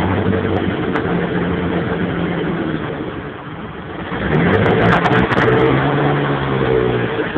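1992 Mitsubishi 3000GT VR4's twin-turbo V6 running, blipped up in revs about four seconds in and held there before dropping back near the end. The engine has a misfire the owner is chasing.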